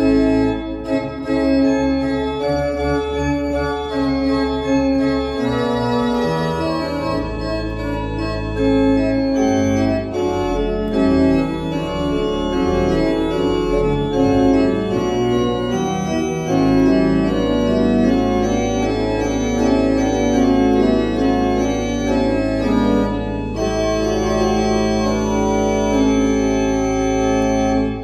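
Rieger pipe organ from 1910, rebuilt as a 26-stop baroque-type organ, playing an improvisation: quick-moving chords and runs over low bass notes, with one low bass note held steadily from about halfway through.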